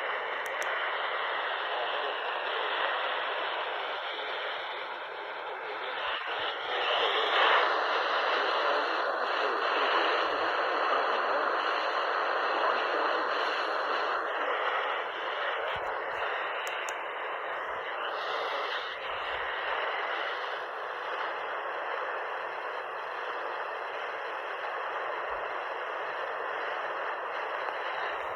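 Radio static: a steady hiss from a radio receiver with no broadcast coming through, with a few faint clicks.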